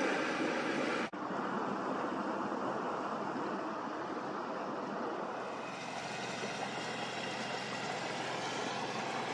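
Steady road and engine noise of a car being driven, with a brief dropout about a second in.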